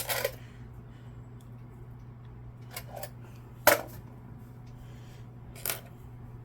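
Small metal screwdriver bits clicking and tapping as they are handled and tried one after another on a tiny security screw. A handful of separate sharp clicks, the loudest a little before four seconds in.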